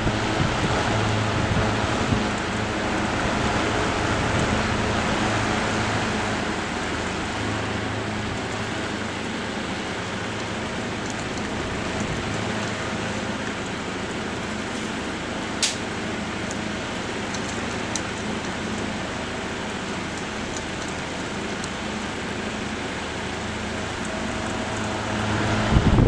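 Late-1930s Emerson Silver Swan table fan running: a steady rush of air from the blades over a low motor hum. A single sharp click comes just past halfway.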